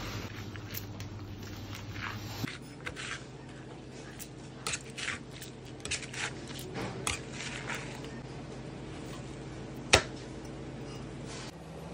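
Long knife slicing and scraping through raw fish flesh along the bones on a plastic cutting board: a run of short soft strokes, with one sharp knock about ten seconds in, over a steady low hum.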